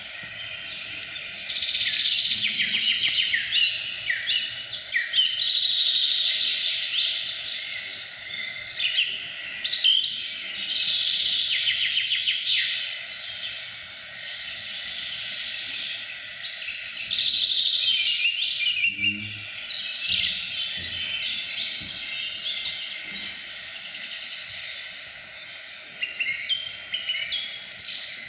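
Many birds chirping and singing continuously, with busy overlapping high calls, over a faint steady hum.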